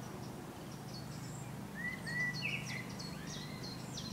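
Birds chirping: a string of short, quick, high chirps with a few rising whistles in the middle, over a steady low hum.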